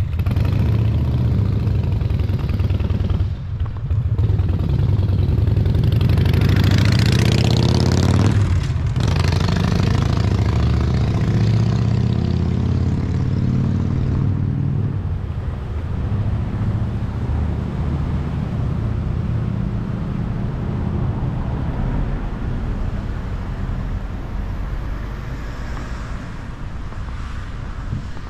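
Street traffic: a vehicle drives past close by, swelling to its loudest about seven to eight seconds in and then falling away, over a steady low rumble.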